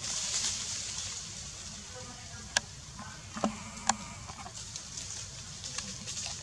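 Forest background with a steady high insect hiss. Two sharp clicks come about two and a half and four seconds in, with a short falling squeak between them.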